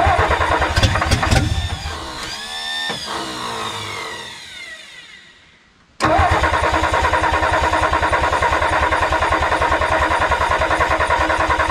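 1962 Ford F600's inline-six engine cranked over with carb cleaner sprayed into the carburetor: it fires briefly, its pitch rises, then winds down and dies away. A few seconds later the starter cranks it over again steadily, with even rapid pulses, drawing gasoline up from the tank to the carburetor.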